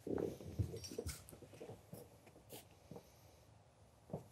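Paint marker scratching short marks onto EPDM rubber roofing membrane, faint, with a few light taps and rustles from gloved hands.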